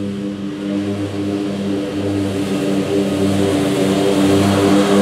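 Scag Cheetah zero-turn mower running steadily while mowing, its engine note pulsing in an even rhythm and growing louder over the last couple of seconds as it comes closer.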